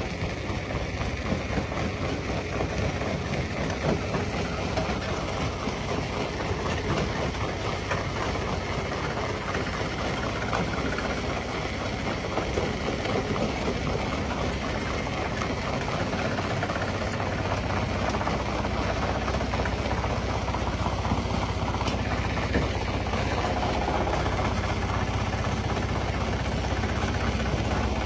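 Stone crusher running: a steady engine drone under a continual clatter of rock being broken, the low hum growing stronger about two-thirds of the way through.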